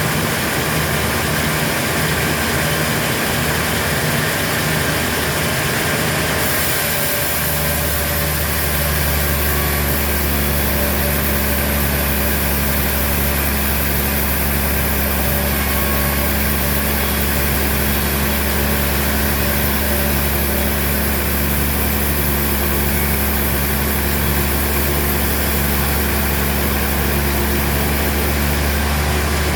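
Heavy machinery engine running steadily with a low, even hum; about seven seconds in the sound shifts to a deeper, stronger drone.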